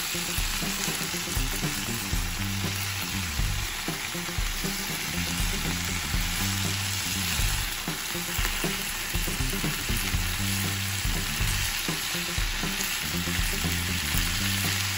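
Marinated chicken pieces frying in oil on a flat tawa pan, with a steady sizzle. The pieces are turned over with metal tongs.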